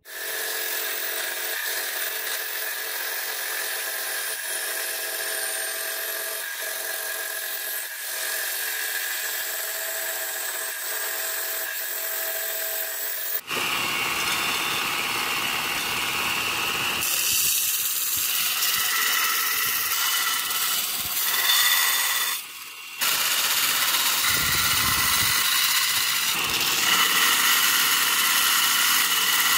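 A power tool runs steadily. About halfway through the sound changes abruptly to a belt sander grinding a straight-razor handle blank down to the outline of a paper template, dipping briefly about two-thirds of the way in.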